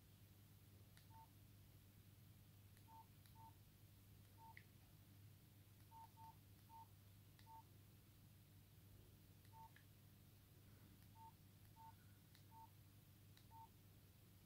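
Nokia 5130 XpressMusic keypad tones: a short, faint single-pitch beep at each press of the navigation key while scrolling through the phone's menus. There are about a dozen beeps at uneven intervals, with faint clicks from the keys.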